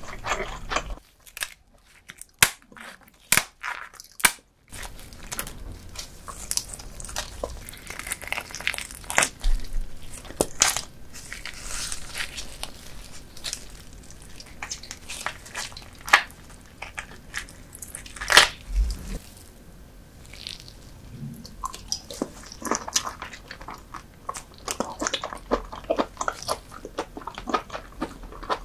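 Close-miked eating sounds of a person chewing and biting soy-sauce-marinated raw lobster and salmon roe with rice: wet, sticky chewing with sharp crackling clicks. About a second in there is a quieter pause with only a few clicks, then the chewing carries on steadily.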